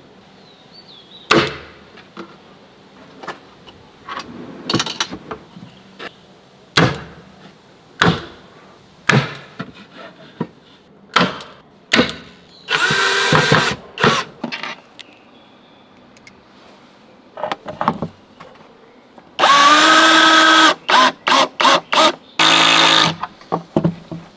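Knocks and clatter of wood and tools being handled, then an electric drill driving screws: a short run about halfway through, and near the end a longer run followed by several quick trigger pulses as each screw is seated.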